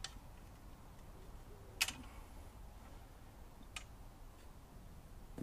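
A few sharp clicks and knocks from a metal lawnmower handlebar and its drive cable being handled and fitted, the loudest about two seconds in, over a low steady rumble.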